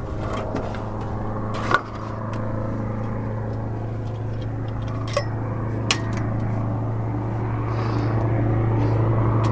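A search plane's engine droning steadily and growing slowly louder, with a few sharp clicks.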